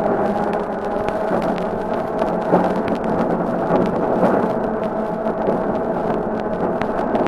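London tram No. 1768 running, a steady hum over a constant rumble, played back from a 1950 acetate disc with continuous crackle and clicks of surface noise.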